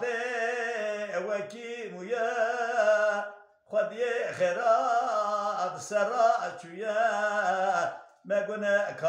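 An elderly Kurdish dengbêj sings a qeside solo and unaccompanied. His voice wavers and ornaments long held phrases, with two short breaks for breath about three and a half and eight seconds in.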